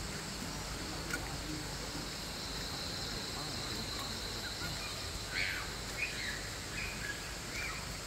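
Night insect chorus: a steady high-pitched drone, with a few brief faint sounds over the second half.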